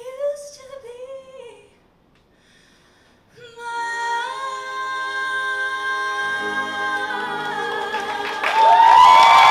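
A female vocalist sings a short phrase and, after a brief pause, holds one long final note, with lower notes joining beneath it partway through. Near the end the audience bursts into applause and cheering.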